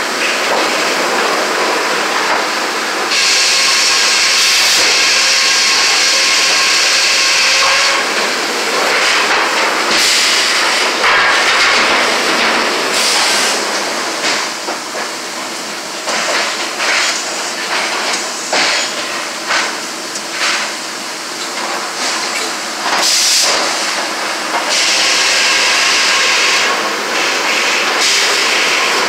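Sawmill circular headsaw running and cutting through a log, a loud hissing whine that swells a few seconds in for about five seconds and again near the end. In between, the mill clatters with irregular knocks and clicks from the carriage and log handling.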